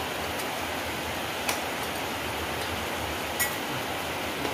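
A few sharp clicks of snail shells tapping against bowls and plates as they are picked at, three in all, the loudest near the end, over a steady hiss of rain.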